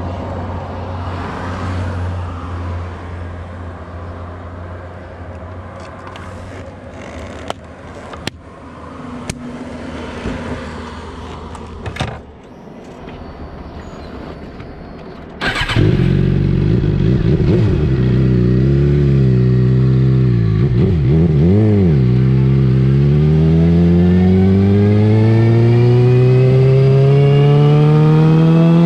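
2007 Suzuki GSX-R 750's inline-four engine, heard right at its Yoshimura R55 slip-on muffler. In the first half there is a lower, steadier rumble with a few sharp clicks. About halfway through it jumps suddenly to a loud exhaust note, whose revs rise and fall a few times and then climb steadily as the bike accelerates.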